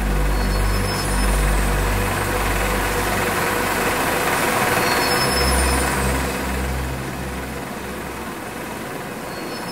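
Dark ambient soundtrack drone: a low rumbling hum that changes pitch in steps, under a rushing hiss that swells toward the middle and then eases off.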